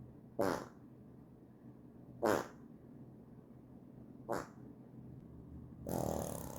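Three short farts about two seconds apart, then a longer, noisier fart starting near the end.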